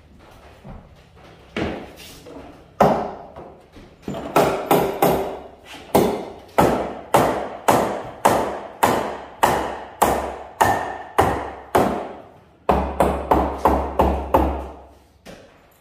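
Hammer blows on a wooden workbench frame, driving nails into the boards: a steady run of sharp strikes, about two or three a second, then a quicker run of heavier, duller blows near the end.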